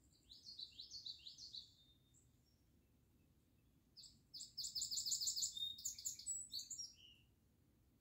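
Wild songbird singing in two phrases: a short run of quick falling notes about half a second in, then a louder, longer phrase of rapid repeated high notes from about four seconds to seven. Faint low background noise lies underneath.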